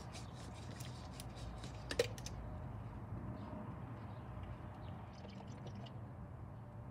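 0W-20 motor oil pouring from a plastic quart bottle into a plastic funnel in the engine's oil filler neck, with a single sharp knock about two seconds in and a few small ticks near the end.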